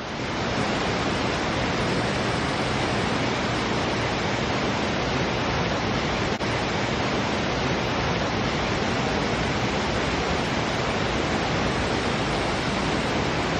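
Stream water rushing steadily over rocks, a dense, even hiss, with a momentary dip about six seconds in.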